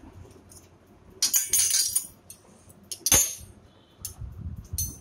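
Dishes clinking and clattering: a quick run of clinks about a second in, then one sharp knock about three seconds in and another near the end.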